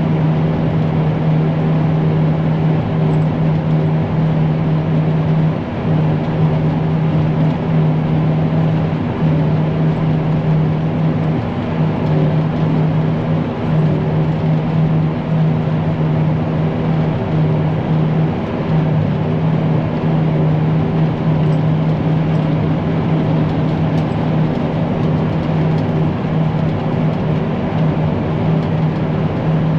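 A heavy farm machine's diesel engine running steadily under load, a constant low hum with a few brief dips.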